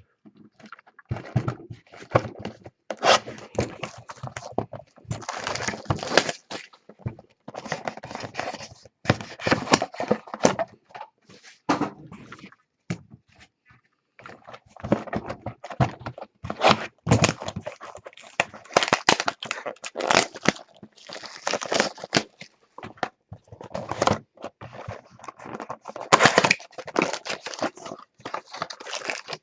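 Trading card packs being torn open and the cards handled: wrapper crinkling, tearing and scraping in irregular bursts, with a few short pauses.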